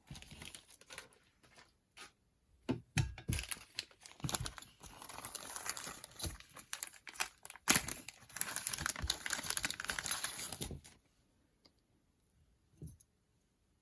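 Packaging crinkling and rustling as it is handled, in uneven bursts with scattered clicks, stopping about eleven seconds in.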